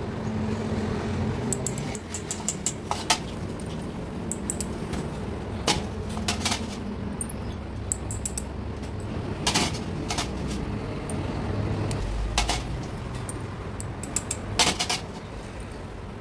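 Light metal clicks and clinks from handling a diesel injection pump plunger and barrel over a stainless steel bowl, a single click or a quick pair every second or two, over steady low background noise.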